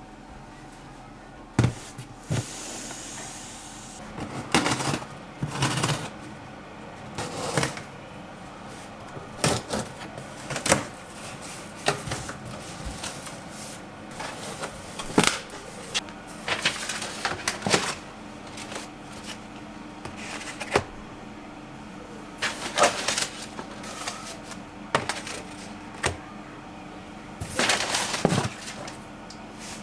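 Irregular clatter of objects being handled: many separate knocks, clicks and short rustles, over a steady low hum.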